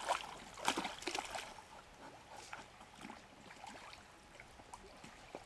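Dog splashing in lake shallows: a few sharp splashes in the first second or so, then quieter sloshing of water as it swims.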